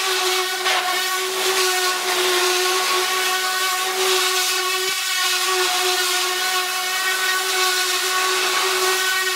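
A high-pressure washer spraying water from a lance onto plastic feeder pans. A steady hiss of the jet runs over the steady whine of the pump motor.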